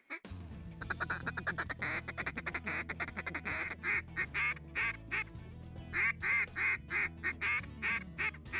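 Background music with held low notes, over mallard-hen quacks blown on a duck call: a fast run of rapid chattering notes in the first few seconds, then spaced series of louder quacks.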